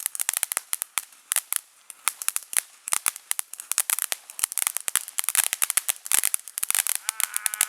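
A string of firecrackers going off, rapid irregular sharp pops and cracks many times a second with a few short lulls.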